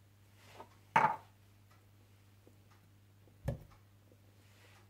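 Kitchen cookware knocking while the butter and oil are set to heat: a sharp, briefly ringing clank about a second in and a duller thud about two and a half seconds later, over a faint steady hum.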